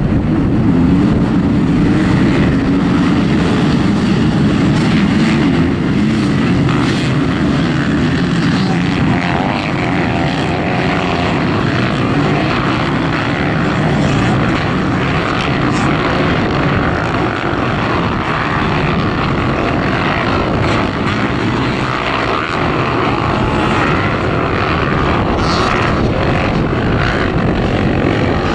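A large pack of off-road dirt bikes running hard together, their engines blending into one loud, dense, steady din of many motors at once.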